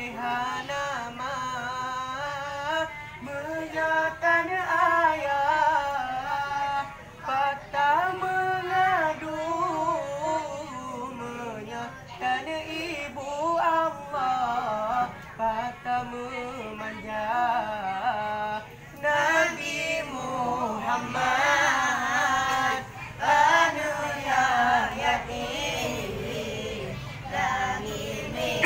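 A group of boys chanting zikir together in a wavering, melodic line. About two-thirds of the way through, the chant grows fuller.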